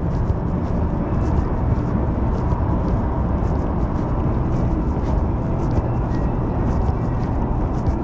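Las Vegas Monorail train heard from inside the car while running: a steady low rumble with a faint steady whine and light rattles and clicks.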